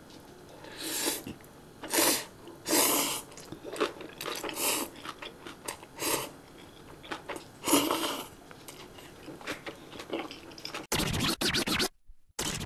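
Instant ramen noodles being slurped from a bowl, in a string of short, loud slurps with chewing between them. About eleven seconds in it cuts off abruptly to dense sound effects.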